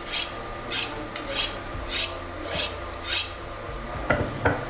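Steel knife blade drawn along a ceramic honing rod: about six quick scraping strokes, roughly one every half second, stopping about two-thirds of the way through, followed by a couple of light knocks. The strokes are honing to revive an edge that was deliberately dulled by striking it.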